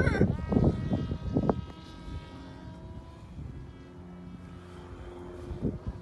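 Parrot Disco fixed-wing drone's electric pusher propeller whining as it flies overhead: a steady pitched hum that dips slightly in pitch at the start and fades after about two seconds, leaving a fainter, lower hum.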